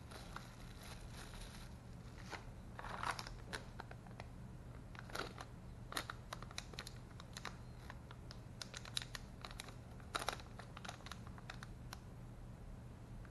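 Plastic and foil anti-static bags crinkling and rustling in the hands as electronic components are unwrapped, with scattered small clicks and taps at irregular times. A low steady hum runs underneath.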